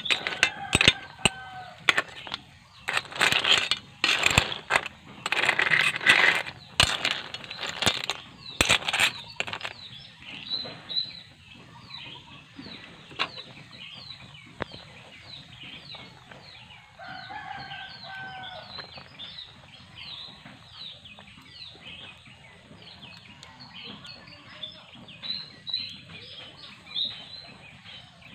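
Chickens calling: short falling peeps, several a second, run throughout, with a longer, steadier fowl call near the start and again about 17 seconds in. A run of loud, rough bursts of noise fills the first nine seconds.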